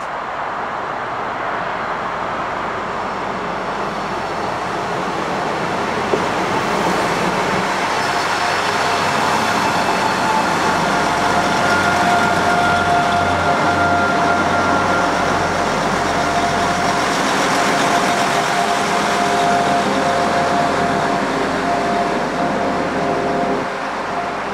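A train passing. Its rushing noise builds over several seconds, with a low engine hum and a steady whine in the middle, then drops away near the end.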